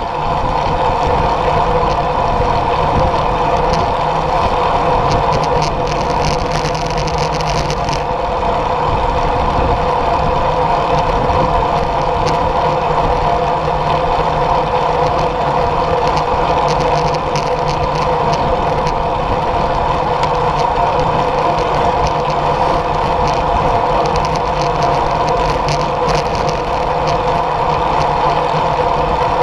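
Steady rush of wind over a handlebar-mounted camera while riding a road bike at speed, mixed with tyre noise on asphalt and a constant hum. A spell of light clicking comes in about six to eight seconds in, and briefly again later.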